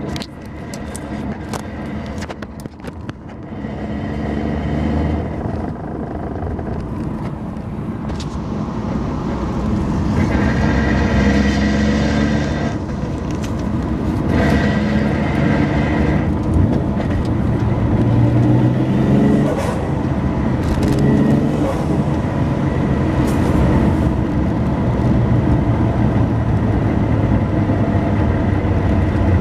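Car engine and drivetrain running at low revs while driving, heard inside the cabin, with a transmission noise that shows up only below 2000 rpm. A few clicks and knocks come in the first few seconds, and the drone grows louder over the first ten seconds, then holds steady.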